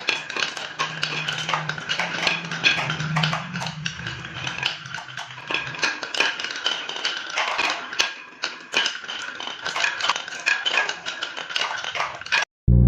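Marbles clattering and rolling along a marble run track, a dense run of quick clicks and knocks over a steady rolling noise. The sound cuts off suddenly near the end.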